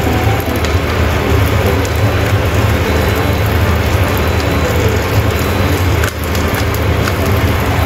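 Egg base of a crustless pizza sizzling and crackling steadily in a frying pan, over a steady low hum, with a brief drop about six seconds in.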